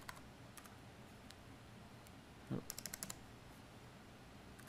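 Faint computer keyboard keystrokes: a few scattered single taps, then a quick run of several keys a little under three seconds in, just after a brief low thump.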